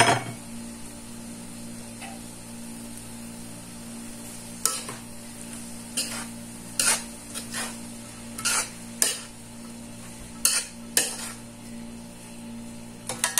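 A utensil scraping and clinking in a cooking pan, about ten short sharp strokes at uneven intervals, over a steady low hum and a faint hiss.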